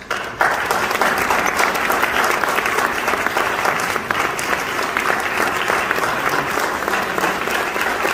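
An audience applauding, breaking out about half a second in and holding steady.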